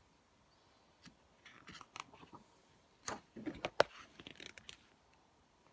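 A paper page of a picture book being turned: a scatter of faint rustles and crisp paper snaps, the sharpest nearly four seconds in.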